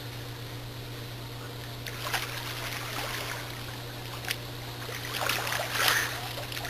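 Swimming pool water splashing and lapping, with a few short splashes about two and four seconds in and a louder stretch of splashing near the end, over a steady low hum.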